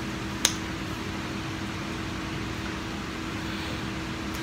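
Steady background hum and hiss, with a single sharp click about half a second in.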